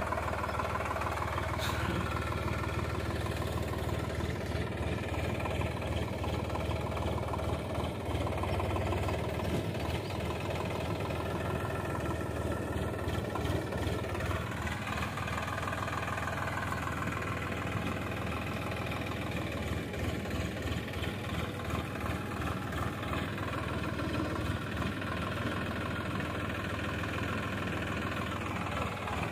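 Sonalika tractor's diesel engine running under load as it pulls a loaded tipping trailer over loose earth. The engine speed dips and rises about halfway through and falls again near the end. There is one short knock about two seconds in.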